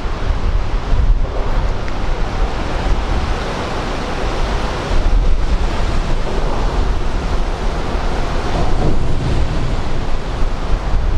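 Wind buffeting the microphone over a steady rush of sea water, with the low rumble of the wind the loudest part throughout.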